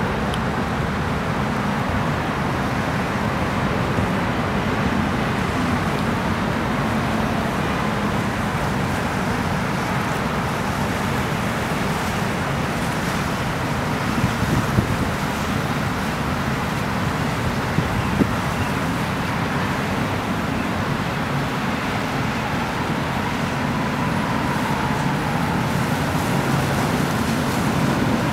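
Steady rumble of boat engines running on the channel, mixed with the wash of water.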